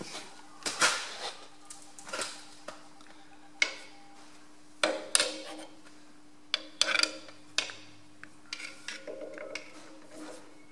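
A long screwdriver clinking and knocking against the steel draft-control linkage at the rear of a Ferguson FE35 tractor: a string of sharp, irregular metal clicks and taps, with a faint steady hum underneath.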